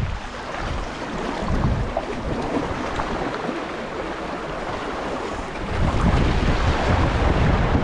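Choppy sea water washing and splashing against concrete breakwater blocks, with wind rumbling on the microphone that grows stronger about six seconds in.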